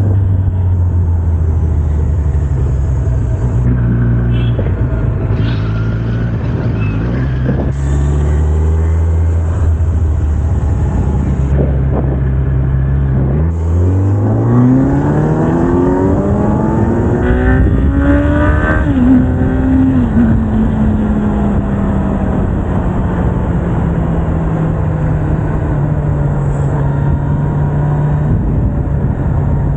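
Kawasaki Z900's inline-four engine with stock exhaust, running steadily at low revs while riding. About halfway through it accelerates hard, the pitch climbing quickly, then eases off and slowly falls away.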